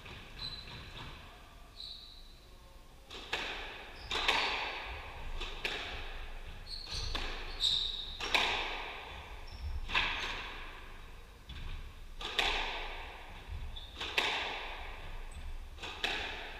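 Squash ball being hit by rackets and smacking off the court walls during a rally: sharp cracks every second or two, each echoing around the court, starting about three seconds in. Short high squeaks of shoes on the wooden court floor come between the hits.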